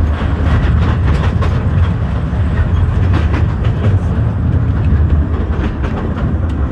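Steam train passenger car running along the track, heard from on board: a steady low rumble with irregular wheel clicks and clatter.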